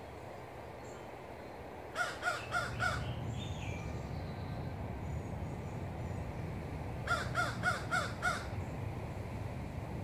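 A crow cawing in two quick runs of harsh calls, four calls about two seconds in and five more about seven seconds in, over a steady low rumble.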